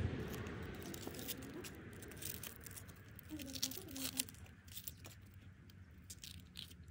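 Dry papery onion skin crackling and tearing as small onions are peeled with a paring knife, a quick run of light, sharp crackles and clicks.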